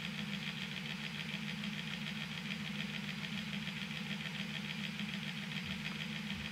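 A machine running with a steady hum and a fast, even flutter.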